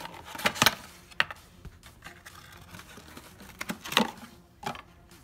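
Cardboard oil-filter box being opened by hand and the filter slid out: a string of sharp cardboard clicks and rustles, loudest about half a second in and again near four seconds.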